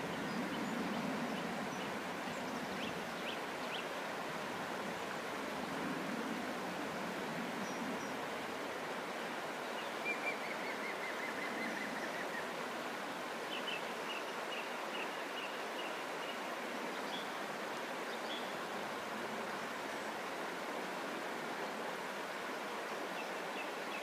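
Shallow river flowing over stones, a steady rushing. Faint birdsong sits above it: a few chirps, a short descending trill about ten seconds in, then a run of repeated chirps.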